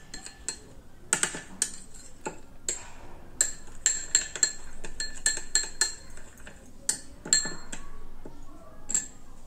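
Steel spoon stirring in a small ceramic bowl, clinking against its sides in irregular quick strikes, a few a second, each with a short ring.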